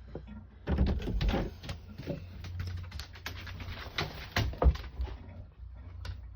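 Irregular clicking and rustling as a wet German shepherd is being dried off, from about a second in until near the end.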